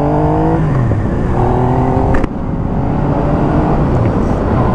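Yamaha FZ-09's three-cylinder engine with an aftermarket exhaust, accelerating hard: it revs up, drops through a gear change about half a second in and pulls again, then the throttle snaps shut about two seconds in with a pop from the exhaust, leaving the engine running on the overrun under wind noise.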